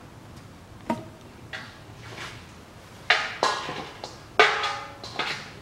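Hand-tool work clanking: a few light knocks, then two louder metallic clanks about a second and a half apart that ring briefly, and a smaller one just after.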